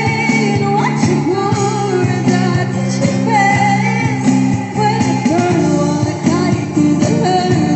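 Pop song playing, with a sung vocal line over steady instrumental accompaniment.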